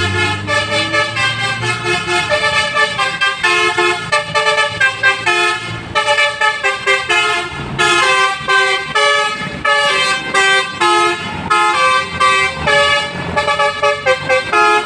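Bus 'basuri' musical air horn with roof-mounted trumpets playing a fast tune of short, stepped notes. A bus engine rumbles underneath in the first couple of seconds.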